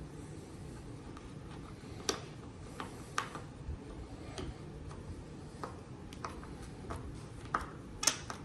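Irregular small clicks and taps of a Phillips screwdriver working a screw as a subwoofer isolation foot is screwed into its threaded insert, with louder ticks about two, three and eight seconds in.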